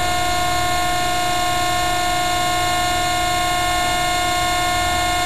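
Steady machine whine from a tensile test bed's power unit as it pulls a galvanized steel strand under about 8,000 pounds of load: several constant tones over a low hum, unchanging in pitch.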